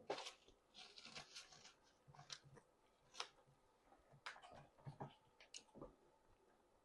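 Faint chewing and wet mouth clicks from a person eating, a scatter of short irregular smacks and crunches.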